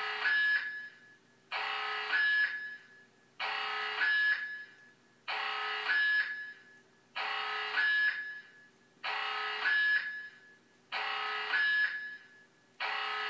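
Edwards EST voice evacuation system sounding its fire alarm tone through the speakers: a harsh, buzzy tone in bursts about a second long, repeating about every two seconds, with a short echo after each. This is the evacuation alarm signal played between the spoken emergency messages.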